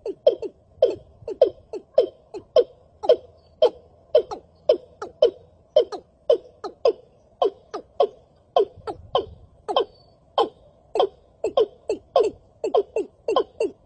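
A fast, uneven run of short bird call notes, each dropping in pitch, about two to three a second, as a lure call played through a loudspeaker to draw birds to a noose trap.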